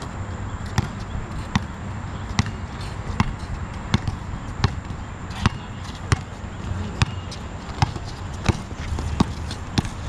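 Basketball being dribbled: sharp, evenly spaced bounces a little more than once a second.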